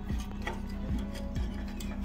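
Background music with a steady beat, about two low thuds a second, with light ticking over it.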